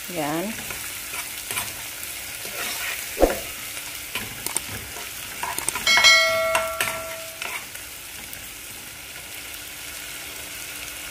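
Sliced onions and ginger sizzling in hot oil in a nonstick pot while a metal spoon stirs and scrapes through them, with a sharp knock of the spoon about three seconds in. About six seconds in a short electronic chime sounds for over a second.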